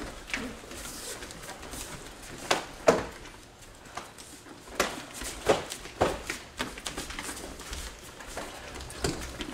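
Short, sharp slaps and thuds of Kenpo self-defence strikes landing on a partner's body and uniform, several in quick succession. The loudest comes about three seconds in, more follow between five and six seconds, and one more near the end.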